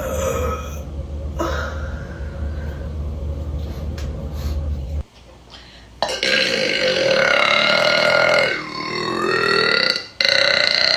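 A woman burping: one long burp lasting over two seconds starts suddenly about halfway through, its pitch dropping as it ends, and a second burp begins near the end.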